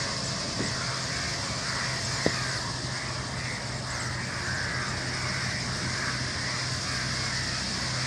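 Massed chattering of a huge flock of rosy starlings in flight: a dense, continuous din of overlapping calls over a steady low hum, with one sharp click about two seconds in.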